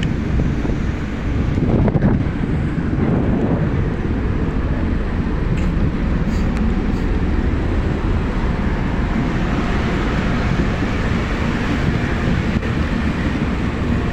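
A tugboat's engines running steadily, with wind blowing across the microphone on deck.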